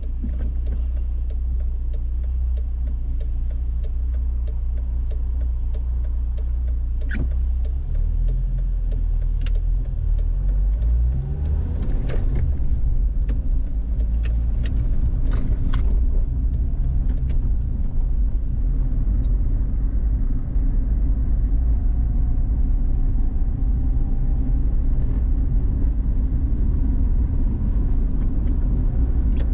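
A car driving along, a steady low engine and road rumble; about ten seconds in the engine note rises as the car picks up speed.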